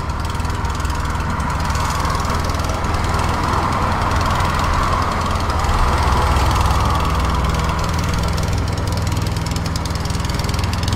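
An engine running steadily with a low hum, and a hiss that swells in the middle and then eases off.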